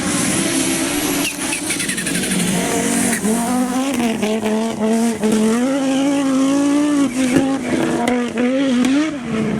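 Group B rally car engine running hard on a stage, its note rising and falling repeatedly with throttle and gear changes.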